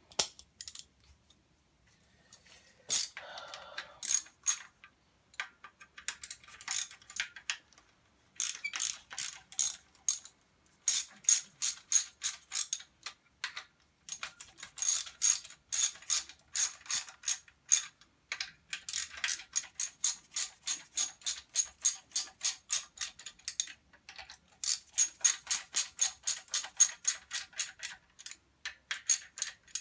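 Hand ratchet clicking in repeated runs of quick strokes, about four clicks a second, with short pauses between runs, as the timing-belt tensioner bolt is tightened.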